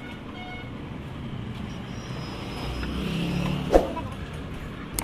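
Street traffic noise from passing road vehicles, with a single sharp click about three-quarters of the way in.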